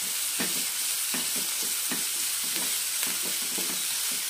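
Chopped onions sizzling in hot oil in a non-stick pan, stirred with a wooden spatula that scrapes and turns them about two or three times a second.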